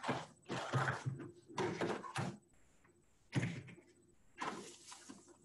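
Product props being moved and set down on a table: a series of short scrapes and knocks.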